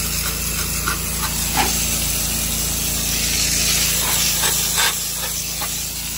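Pressure washer spraying: a high-pressure water jet hissing steadily as it strikes grass and concrete, over a steady low hum.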